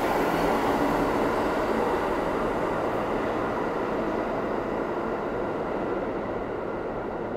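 New York City subway train of R46 cars rolling out of the station, its steady wheel-and-rail rumble fading gradually as it pulls away.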